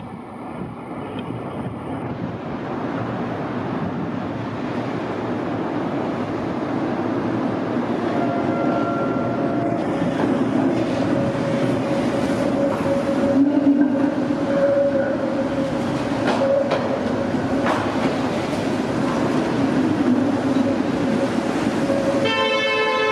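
Tatra T4R tram approaching and passing close, its running noise growing steadily louder, with a few clicks from the wheels over rail joints and a steady wheel squeal as it takes the curve. Just before the end a short warning horn sounds.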